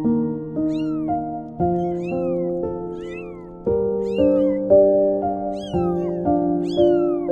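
Young kittens mewing repeatedly, thin high meows that rise and fall in pitch, about one every half second to second. Gentle background music plays under them, with its notes changing every half second or so.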